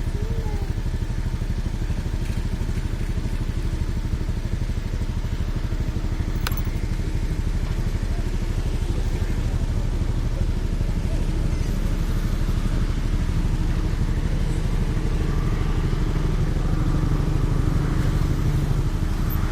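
Diesel engine of a Hitachi long-reach excavator running steadily, with a single sharp click about six and a half seconds in. The engine note swells a little near the end.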